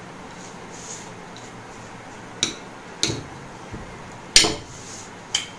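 A small spoon clinking against a tray as a soft sweet mixture is pressed flat: about four sharp clinks roughly a second apart in the second half, the third the loudest.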